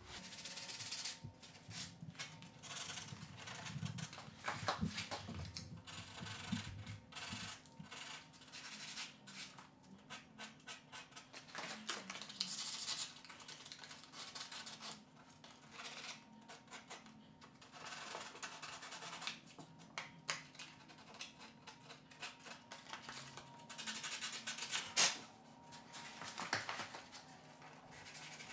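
Hand sanding of a filled corner joint on painted wood door casing with a quarter sheet of 150-grit sandpaper and a fine sponge sanding block: short, irregular scratching strokes. Near the end there is a single sharp click.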